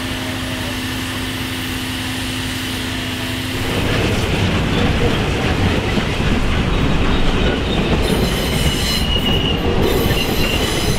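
South African Class 19D steam locomotive train on the rails: a steady hum at first, then about four seconds in the louder rolling noise of the train passing, with a high wheel squeal in the last few seconds.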